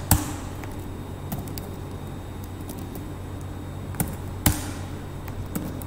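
Scattered computer keyboard keystrokes, a few sharp clicks with fainter taps between, over a steady low hum.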